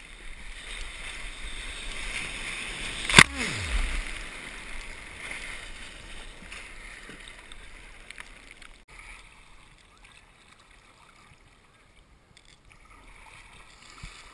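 Whitewater of breaking surf hissing and fizzing around a kayak, through a chest-mounted GoPro, with one sharp, loud slap about three seconds in. The water noise fades to a faint wash in the second half.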